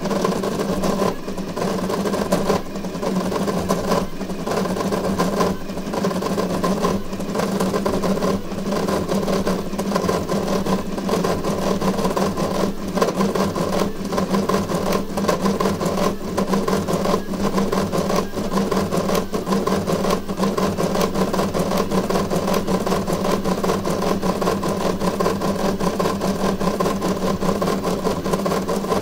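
Voron 3D printer printing at high speed: its stepper motors whine and buzz steadily as the toolhead darts about, with short dips roughly every second and a half through the first part.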